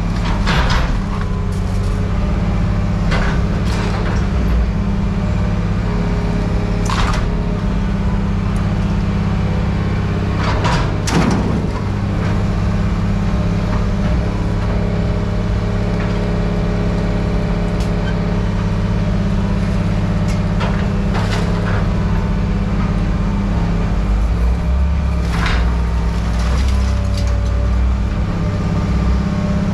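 A heavy machine's engine running steadily, with occasional sharp clanks and knocks of scrap metal being handled.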